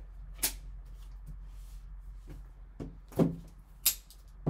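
A shrink-wrapped cardboard trading-card box being handled and set down on a tabletop: three sharp knocks and taps, about half a second in, just after three seconds and near four seconds, the one after three seconds the loudest.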